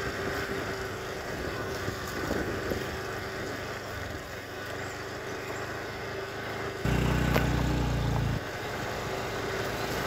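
Motorcycle riding along a dirt track, its engine running steadily. About two-thirds of the way in, a loud low rumble comes in suddenly and cuts off after about a second and a half.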